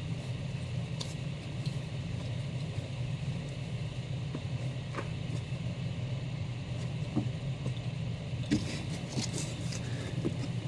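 Steady low background hum, with a few light taps and a brief rustle about eight and a half seconds in as comics are handled.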